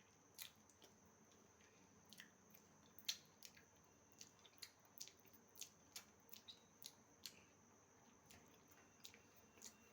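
Near silence with faint, irregular sticky clicks and squelches, roughly one every half second through the middle, as a spoonful of honey is stirred into a ground black pepper and clove paste. A faint steady high hum sits underneath.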